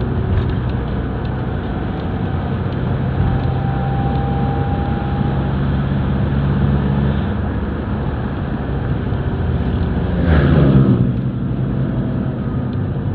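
Nissan NV350 Urvan van being driven, heard from inside the cabin: steady engine and road noise with a low hum, on a road test for an abnormal droning noise. About ten seconds in there is a brief louder sound whose pitch bends.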